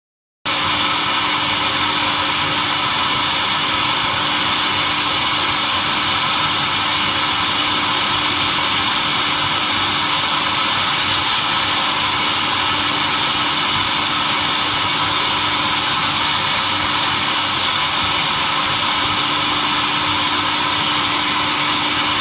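Automatic light pole welding machine running: a loud, even hiss with a steady hum, unchanging, cutting in abruptly about half a second in.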